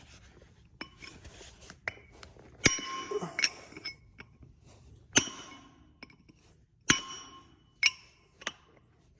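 Hammer blows on a chisel against steel: about six sharp, ringing metal strikes spaced roughly a second apart, with a couple of lighter knocks before them. They are chopping at a stuck bearing to split it free of a Gleaner R72 combine's final drive shaft.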